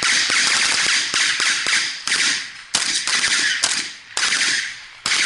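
Rifle gunfire at close range: rapid shots fired in several long bursts with short gaps between them.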